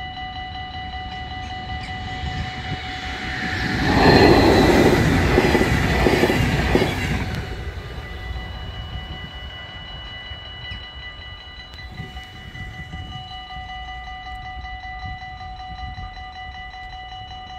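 Railroad crossing warning bells ringing steadily. About three and a half seconds in, a passing train's wheel and rush noise swells up, drowning the bells, and fades away over the next four seconds.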